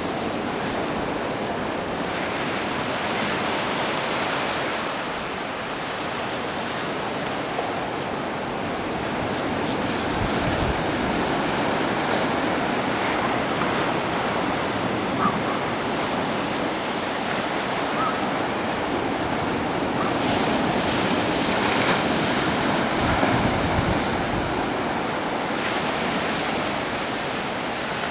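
Ocean surf breaking and washing ashore in a steady rush, with wind buffeting the microphone in a few low gusts.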